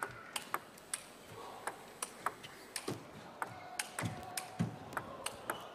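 Table tennis ball in a rally, a fast run of sharp clicks a few per second as it is struck by the bats and bounces on the table.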